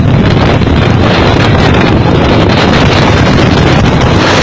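Storm wind buffeting the microphone in a heavy rainstorm: a loud, steady rush of wind noise.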